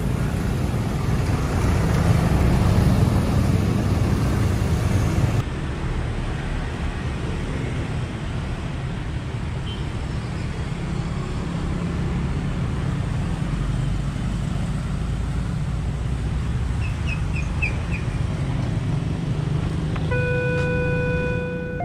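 A large coach engine and heavy road traffic rumble past for the first five seconds or so, then steady traffic with passing motorcycles. About twenty seconds in, the railway crossing's electronic warning alarm starts sounding, a steady alternating tone signalling an approaching train.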